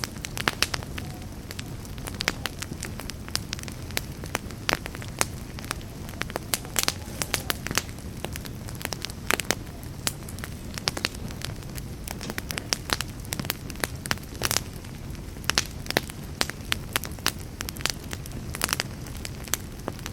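Campfire crackling, with frequent irregular sharp pops over a steady low rush of burning flames.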